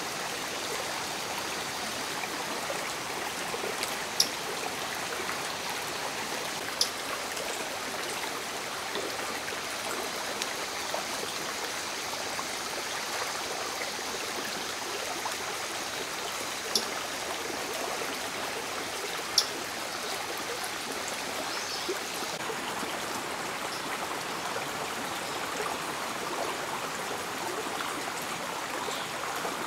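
Steady rush of flowing river water, with four short, sharp, high-pitched ticks standing out above it, two in the first quarter and two a little past the middle.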